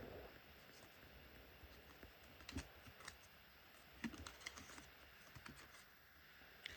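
Faint, scattered light clicks and taps of trading cards being handled and flipped through by hand, with near silence between them.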